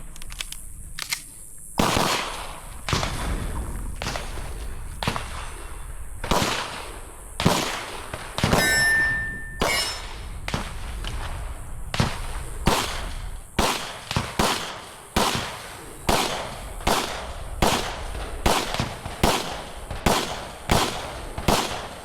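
Pistol shots fired in a timed string, about thirty in all: spaced out at first, then coming about two a second in the second half. A steel target rings out after a hit about nine seconds in.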